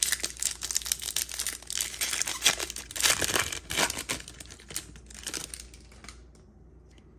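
Wrapper of a 2024 Topps Series 1 baseball card pack being torn open and crinkled as the cards are slid out. The crackling stops about six seconds in, leaving only light handling.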